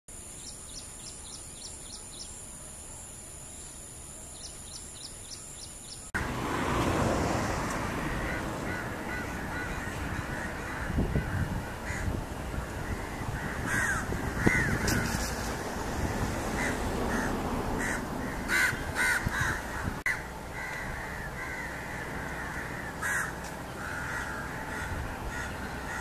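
Wild birds calling at a wetland. First a faint steady high whine with two runs of short, quick chirps. Then, from about six seconds in, it gets louder: many harsh, caw-like calls overlapping above a low rushing noise.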